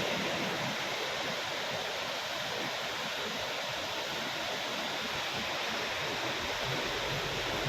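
Floodwater rushing steadily, a continuous even rush of water.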